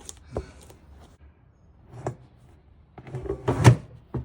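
Clunks and scrapes of a part being worked back into place on a top-load washing machine: a couple of single knocks, then a louder cluster of knocks and scraping about three seconds in, ending in a sharp click.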